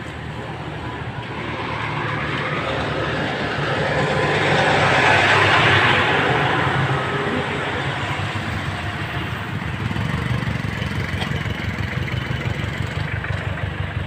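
Street traffic: motor vehicle engines running, with a steady low rumble. One vehicle passes close, getting louder to a peak about five or six seconds in and then fading.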